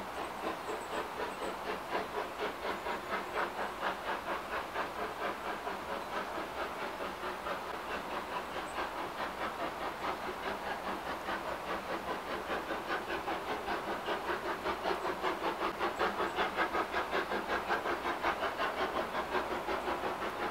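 Steam locomotive working with a steady, rhythmic chuff of exhaust beats, growing louder in the second half as it comes closer.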